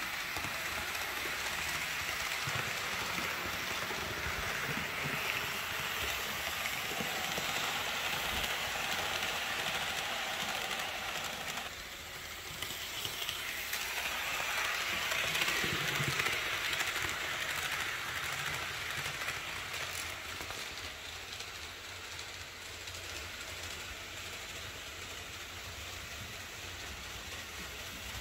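Märklin 37379 HO-scale Class 101 electric model locomotive pulling a train of coaches around ballasted three-rail track: a steady rushing, rolling sound of motor and wheels on rail, louder as the train passes close by a little after halfway.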